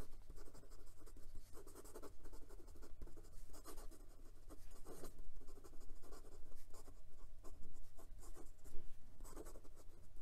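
Fountain pen with a 14k gold calligraphy No. 8 nib scratching across notebook paper in quick cursive writing: a continuous run of short, irregular strokes.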